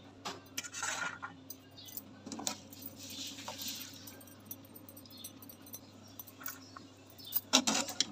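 Steel wire-mesh strainer ladle clinking and scraping against a steel pot as boiled cauliflower is scooped out, with a louder metal clatter near the end.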